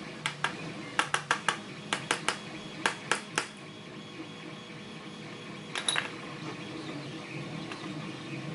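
Small metal lock parts clicking and tapping as the pins and springs of a pin-tumbler lock are taken out and set down: about a dozen sharp clicks in the first three and a half seconds, then a short cluster about six seconds in.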